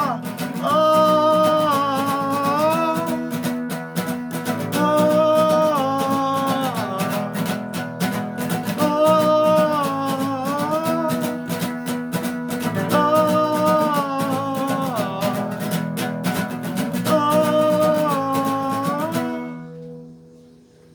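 Instrumental ending of a song: guitar accompaniment under a lead melody that repeats the same phrase about every four seconds. The music stops abruptly near the end and leaves a short fading ring.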